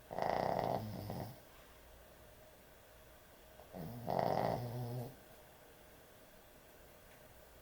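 A sleeping dog snoring: two snores, each just over a second long, about three and a half seconds apart.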